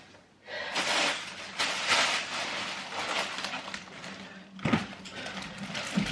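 Plastic packaging rustling and crinkling as it is handled, with a single bump about three-quarters of the way through.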